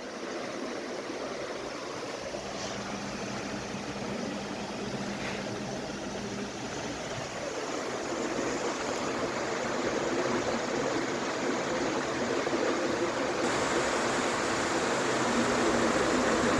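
48-inch PBS ceiling fan running, a steady rush of air from its blades with a faint hum, gradually growing louder.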